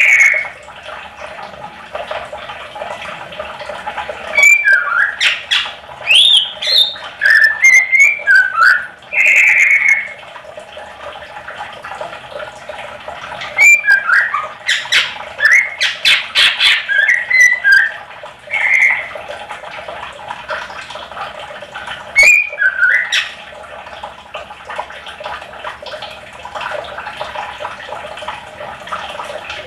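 Cucak ijo (green leafbird) singing in bursts of quick, varied whistled notes mixed with harsh chattering calls, with pauses of a few seconds between bursts and a quieter stretch near the end.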